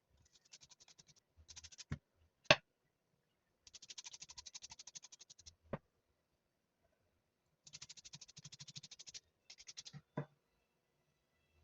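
Rapid rhythmic scraping, about ten strokes a second, in several runs of one to two seconds, with a few sharp knocks between them; the loudest knock comes about two and a half seconds in.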